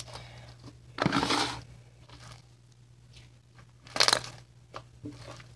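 Hands squeezing and kneading a wet lump of slime mixed with diaper-gel fake snow, with faint crackles and two louder noisy bursts, about a second in and a sharper one about four seconds in.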